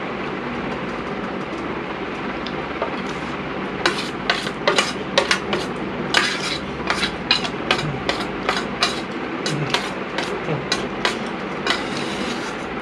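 Metal spoon scraping and clinking inside a round steel container as the last of the noodles is scraped out. There is an irregular run of sharp clinks from about four seconds in, over a steady background noise.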